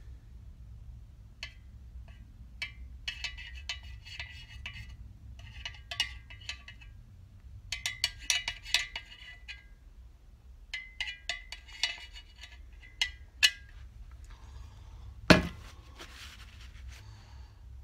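Hand oil can being pumped, in quick runs of metallic clicks as oil is squirted onto crankshaft big-end journals and rods. A single heavier knock about fifteen seconds in.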